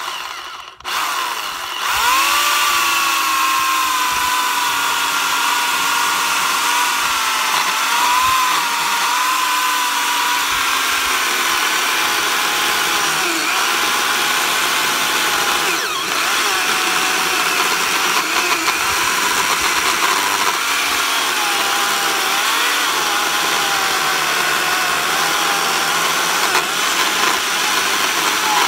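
Makita chainsaw starting up and cutting through a green cherry log, slicing off a slab. A brief stutter comes under a second in, then a steady whine whose pitch dips and recovers as the chain bites into the wood.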